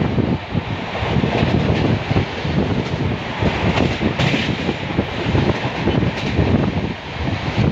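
Chambal Express passenger coach running at full speed. Its wheels rumble and clatter on the rails in a dense, irregular rattle, heard close from the coach side.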